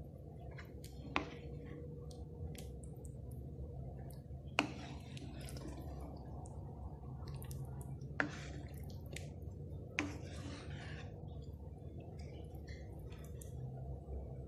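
A long-handled spoon stirring and scooping soup in a metal wok, knocking sharply against the pan four times, with faint liquid sloshing between the knocks. A steady low hum runs underneath.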